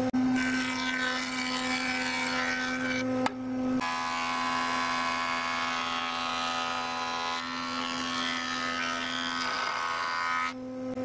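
JET jointer running and cutting a pallet-wood board: a steady motor hum under the hiss of the cutterhead taking shavings off the wood, with a short break about three and a half seconds in.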